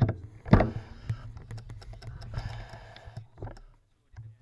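Handling noise close to the camera: a sharp knock about half a second in, then rustling and a run of small irregular clicks.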